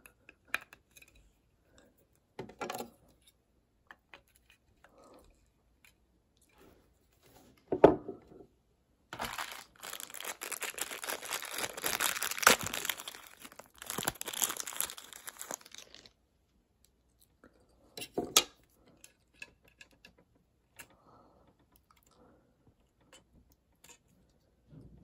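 Plastic parts of a desktop model airliner handled and clicked together, with a sharp knock about eight seconds in, then about seven seconds of plastic wrapping rustling and crinkling, and a few more clicks near the end.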